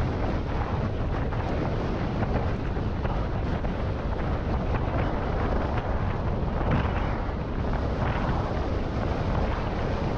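Wind buffeting a handlebar-mounted GoPro's microphone while riding an electric scooter along a road: a steady, heavy rumbling rush.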